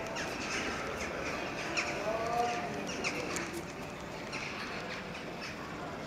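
A large flock of crows gathering to roost, calling: many short calls that drop in pitch, overlapping and scattered throughout, over a steady background hum.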